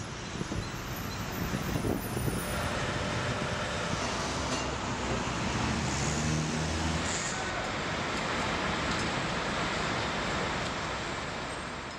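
Steady road traffic noise, with a vehicle's engine passing about halfway through.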